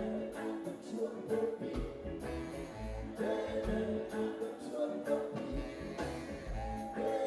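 Live reggae band playing with a steady beat of drums and bass, electric guitar, and a lead voice singing with backing singers.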